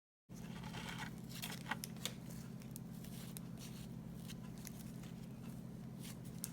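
Trading cards and their pack wrapper being handled: faint light crinkles and clicks, a little busier in the first two seconds, over a steady low hum.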